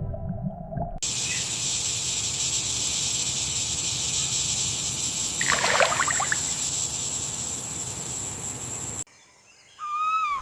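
Steady high hiss of outdoor forest ambience, with a brief flurry of chirps about six seconds in. It cuts off suddenly near the end, and short whistled calls follow.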